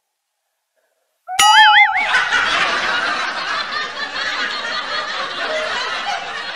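Silence, then a short, wavering comic sound effect a little over a second in, followed by a dense burst of laughter from many voices, like an edited-in laugh track.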